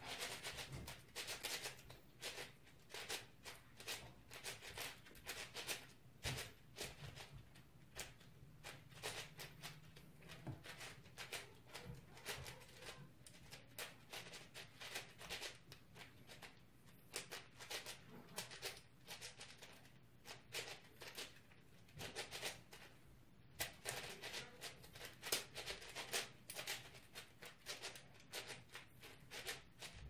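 Plastic multi-layer speedcube being turned rapidly in the hands: a dense, irregular stream of layer clicks and clacks over a faint steady low hum.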